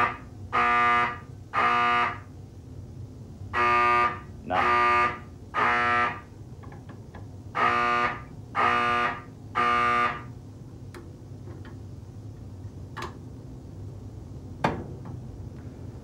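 Mechanical fire alarm horns blaring in the temporal-three pattern, set off by a pulled pull station. There are three groups of three blasts, each blast under a second, with a short pause between groups, and the horns stop about ten seconds in.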